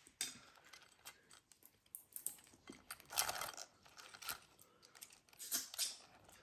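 Someone chewing and crunching food close to the microphone, in irregular crackly bites.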